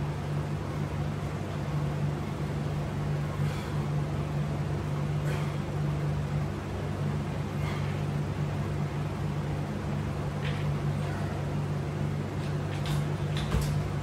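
Window air conditioner running with a steady low hum. Faint brief noises come every two or three seconds.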